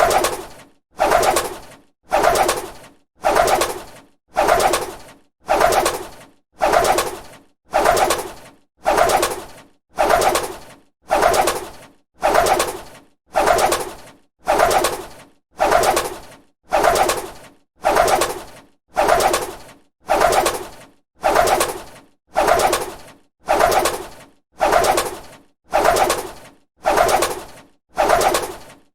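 A bird's wings flapping, heard as a regular run of rushing wingbeat bursts about one a second, each swelling and fading before the next.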